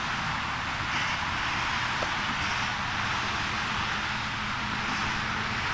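Steady hiss of rain falling, with a low, even rumble underneath.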